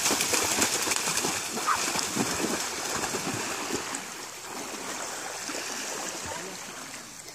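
Splashing of children and a wading adult running through shallow sea water, over the wash of small waves on the shore. The splashing is loudest in the first half and dies down after about four seconds.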